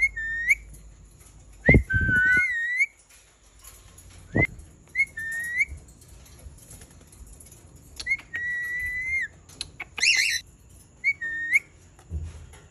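Indian ringneck parakeet giving short, rising-and-falling whistled calls, repeated through the clip, with one longer call about eight seconds in and a harsher screech just after. Two sharp knocks come about two and four and a half seconds in.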